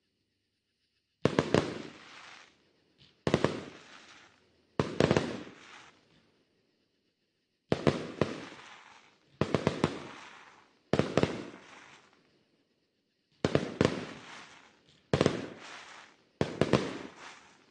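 Fireworks bursting in the sky: nine booms one to three seconds apart, each made of two or three sharp cracks that fade over about a second.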